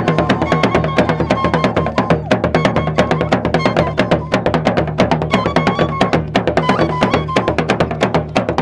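Ensemble of traditional Gurunsi drums, small skin-headed drums struck with curved sticks and hands over a larger barrel drum, playing fast, dense interlocking strokes. A high melody of short held notes steps over the drumming.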